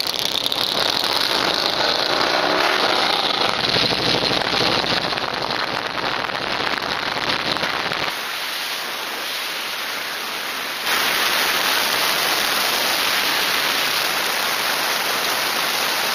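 Wind and road noise rushing over the microphone of a camera mounted on a moving motorcycle, with a low rumble under it for roughly the first half. The noise changes abruptly twice, about eight and about eleven seconds in.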